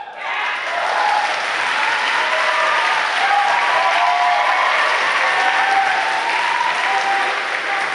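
Audience applauding and cheering at the end of a performance. The applause swells within the first second and then holds steady, with shouts and whoops over the clapping.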